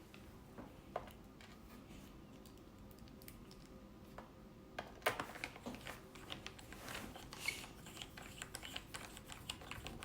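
Screwdriver driving a screw into a laptop's plastic bottom cover: a few faint clicks at first, then a dense run of quick small clicks and taps from about halfway.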